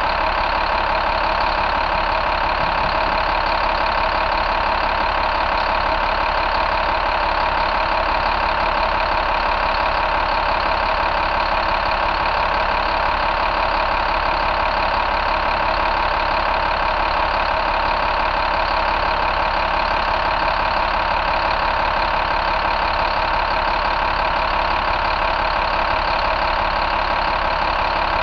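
2012 International MaxxForce DT inline-six turbo diesel idling steadily, heard up close with the hood open.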